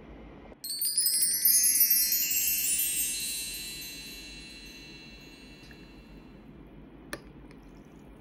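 Sparkly chime sound effect: a quick cascade of high, bell-like tones starts about half a second in and rings out, fading over about three seconds. A single faint click follows near the end.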